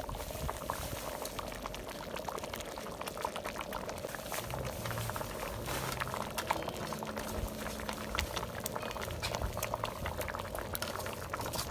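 Pot of soup boiling hard: a steady bubbling with many small irregular pops.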